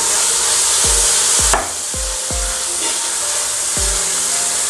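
Shallots, ginger, garlic, green chillies and curry leaves sizzling in hot coconut oil in a large uruli as they are stirred. The sizzle drops suddenly about one and a half seconds in. Background music with a steady beat plays underneath.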